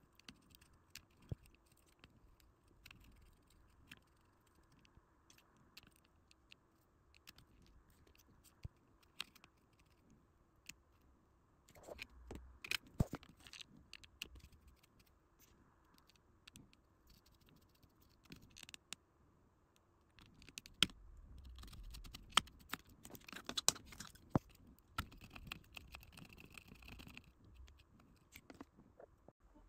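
Sparse small clicks, taps and scrapes of hand work on an electronic circuit board, with diodes being removed from it; busier about twelve seconds in and again from about twenty-one seconds in, over a faint steady hum.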